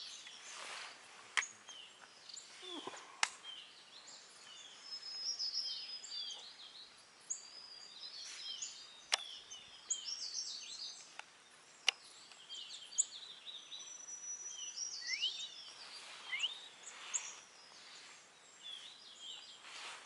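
Small forest birds chirping and calling, many short high chirps close together, with a couple of rising calls after the middle. A few single sharp clicks stand out, several seconds apart.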